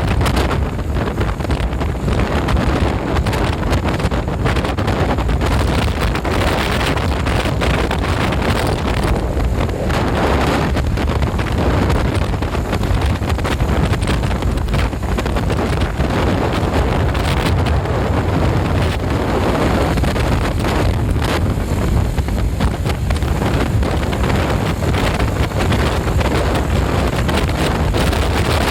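Wind buffeting the microphone over the steady noise of passing road traffic, with no bus horn sounding.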